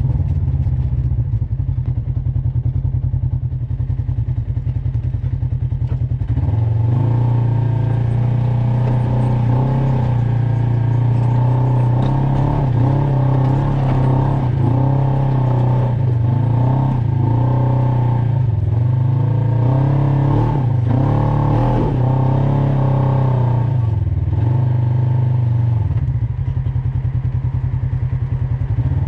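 Off-road vehicle engine climbing a rough trail, rising and falling in pitch with the throttle, with some rattle. It runs low for the first several seconds, pulls harder for most of the middle, and eases off again near the end.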